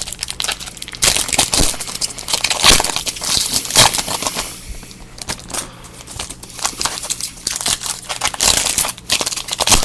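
Crinkling and rustling of card-pack wrappers and packaging being handled, with many irregular small crackles and clicks.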